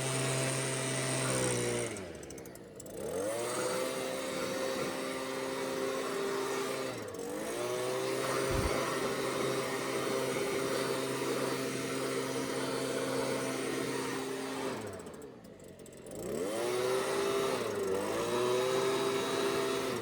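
Gas-powered leaf blower running at high throttle, its engine dropping off and revving back up four times: a long dip about two seconds in, a brief one a few seconds later, then another long dip and a quick one near the end.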